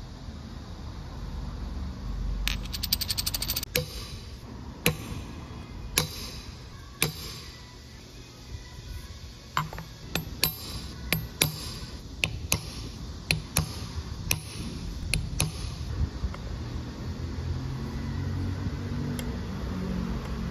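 Sharp metallic clicks and taps as machined aluminium parts and small steel hand tools (a scriber and dividers) are handled and set down on a granite surface plate. A quick even run of ticks comes a few seconds in.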